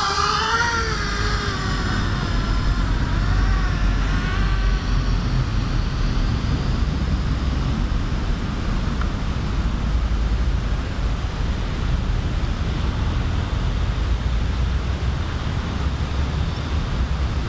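Gravity X210 racing quadcopter's motors and propellers whining as it climbs overhead, the pitch wavering up and down with the throttle, then fading away after about five seconds as it flies off. A steady low rumble runs underneath.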